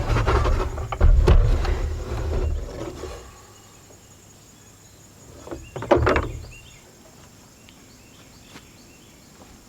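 Knocks and a low rumbling scrape for about three seconds as heavy shop tools are moved and set down, then one thud about six seconds in; faint insect chirps in the quiet between.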